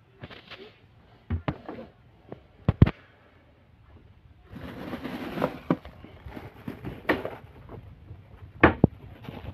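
Kitchen cupboard being opened and rummaged through: several sharp knocks and clunks of the door and things being handled, with plastic food bags rustling about halfway through as a hand digs among the packets.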